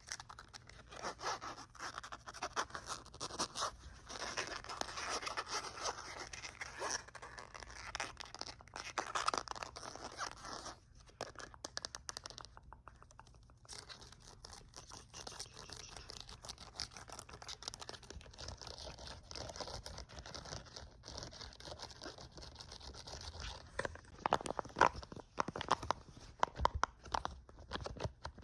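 Fast, rough scratching and crinkling right at the microphone, a dense run of rapid irregular clicks that drops out briefly near the middle.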